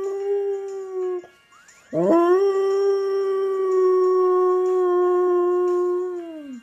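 A dog howling: one howl trails off about a second in, then after a short pause a second long howl rises in pitch, holds steady for several seconds and falls away near the end.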